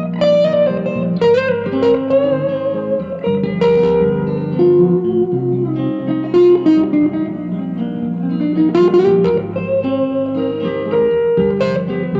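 Electric guitar played through a Vox AC10C1 combo amp: picked chords and single-note lines with held notes, and a note bent upward about three-quarters of the way through.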